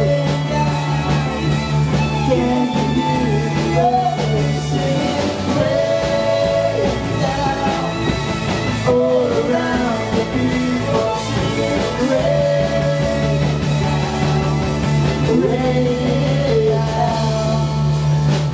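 Live band music: acoustic and electric guitars, keyboard and violin playing a slow song with singing over it, a held low bass note dropping out in the middle and returning about twelve seconds in.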